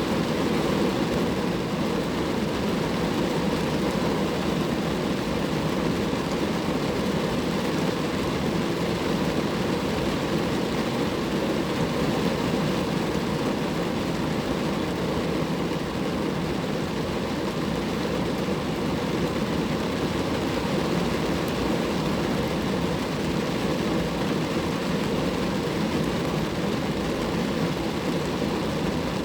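Steady rain falling on a car, an even rushing noise that keeps up without a break.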